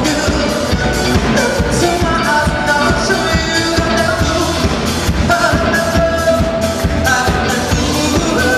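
Live pop band playing an upbeat mash-up, with a male lead singer over a steady dance beat.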